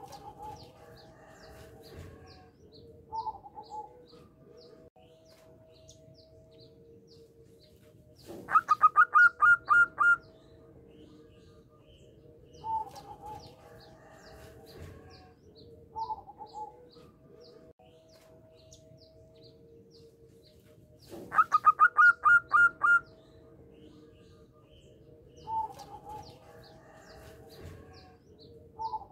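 Zebra dove (perkutut) cooing: short single coos every few seconds, and twice a loud run of about eight quick, rising coo notes. Faint chirping of other birds and a steady hum run underneath.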